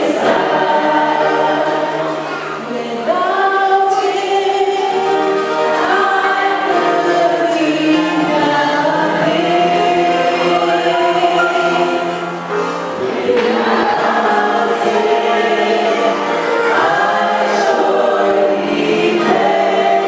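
Many voices singing together in harmony, sustaining long notes phrase by phrase, with short breaths between phrases, as in a church hymn.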